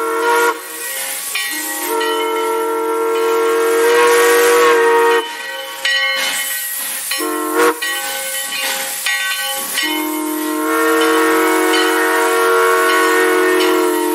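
Steam locomotive whistle sounding several notes at once in blasts: long, long, short, then long. This is the pattern of the grade-crossing signal. Steam hisses under and between the blasts.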